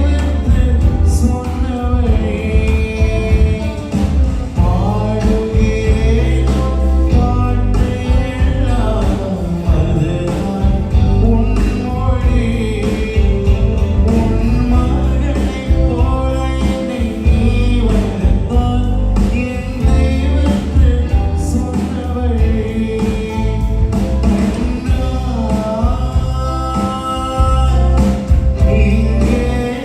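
Live band music played through a PA system, with a singer's voice over the band and a heavy bass end throughout.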